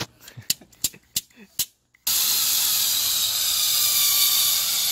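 A few sharp clicks, then about two seconds in a compressed-air two-component polyurea cartridge spray gun starts spraying with a sudden, loud, steady hiss.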